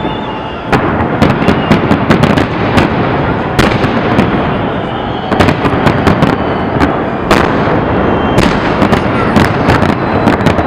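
Fireworks display: aerial shells bursting in a dense, continuous run of bangs and crackles over a constant wash of noise, with a few louder reports standing out.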